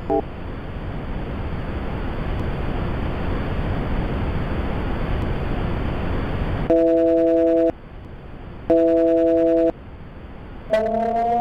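Telephone-line sounds: a hiss of line static that slowly grows louder, then two one-second beeps a second apart, each a chord of three steady tones. Near the end a siren starts, rising in pitch.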